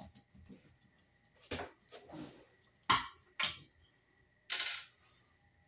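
Clicks and knocks from a screwdriver and wall outlet parts being handled during removal of an old receptacle: a few light knocks, two sharp clicks about three seconds in, then a short clattering rustle.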